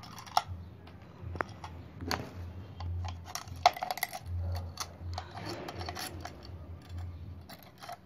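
Small metallic clicks, clinks and scrapes of needle-nose pliers working against the steel housing of a car radiator fan motor, pulling out the wire that holds the motor's carbon brushes back. Two sharper clinks stand out, the louder one a little under four seconds in, over a steady low hum.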